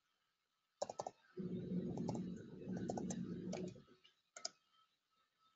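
Typing on a computer keyboard as a password is entered: a quick cluster of key clicks about a second in, then more keystrokes over a dull low sound, and a mouse click near the end.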